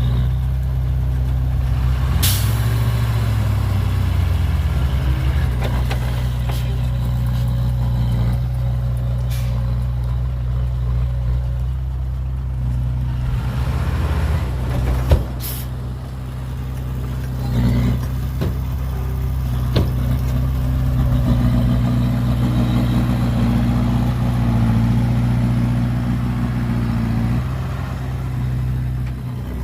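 Heavy diesel engines of a dump truck and bulldozer running steadily at work, with a few sharp knocks or clanks, the loudest about fifteen seconds in.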